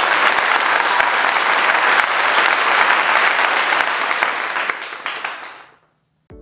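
Crowd applauding, a steady clapping that fades out and stops about six seconds in.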